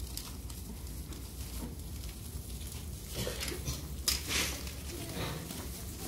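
Large elevator arriving and its doors opening while bicycles rattle as they are wheeled into the car. A sharp clack and a short burst of clatter about four seconds in, over a steady low hum.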